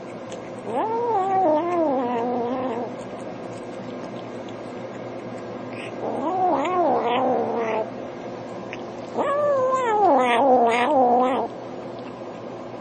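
Hungry kitten making three long, wavering, drawn-out cries while eating.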